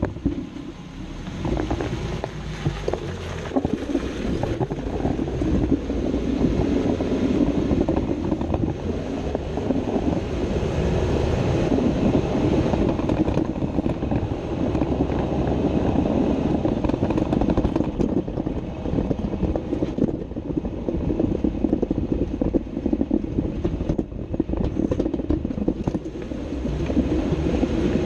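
Underbody noise of a Jeep Wrangler JK on the move, heard close to the running gear: a dense, steady rumble of tyres and driveline with wind on the microphone. It builds over the first few seconds and eases briefly near the end.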